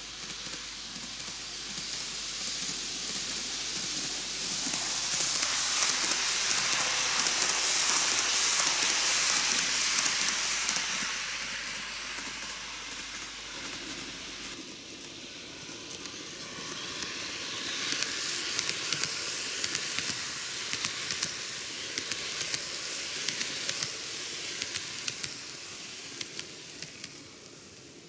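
N-gauge TOMIX Kintetsu 80000 series Hinotori model train running on its track: a hissing whirr of wheels and motor that swells as the train passes close and then fades. It cuts off abruptly about halfway, then builds again with rapid clicks of the wheels over the rail joints.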